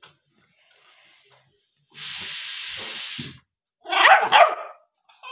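A puppy gives two quick, harsh barks about four seconds in, after a steady hissing noise lasting about a second and a half.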